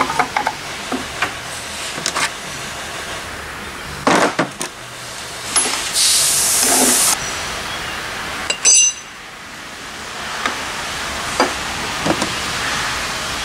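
Metal suspension parts and bushing-press adapters clinking and knocking on a workbench as they are handled. A brief hiss comes about six seconds in, then a sharp clank that rings on.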